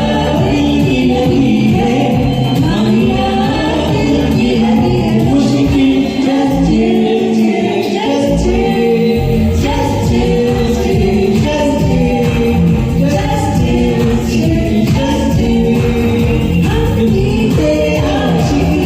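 Vocal singing over a pop karaoke backing track with a steady beat; the bass drops out briefly around the middle, then comes back.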